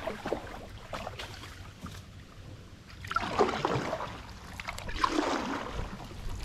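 Paddle strokes swishing through calm river water as a canoe is paddled along, one stroke about every two seconds.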